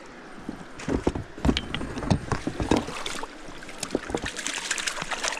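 Water sloshing and splashing with irregular knocks and rustles as the catch of fish is handled at the water's edge.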